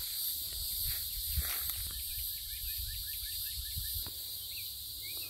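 Steady, high-pitched chorus of insects in summer grass. About two seconds in, a bird sings a quick run of short rising notes, about four a second, for two seconds. Low thumps and rustle of footsteps through the grass run underneath.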